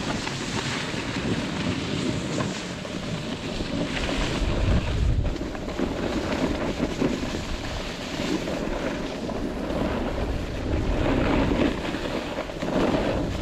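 Wind buffeting the microphone during a downhill run, over the steady hiss of skis or board sliding on snow. A stronger gust rumbles about five seconds in.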